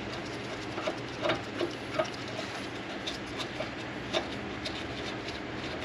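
Scattered, irregular light metal clicks and knocks as the rear brake caliper bracket and its bolts are handled and fitted, over a steady low hum.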